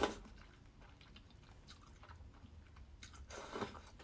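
Close-up chewing of a mouthful of ramen noodles, quiet, with a short louder rush of air about three seconds in.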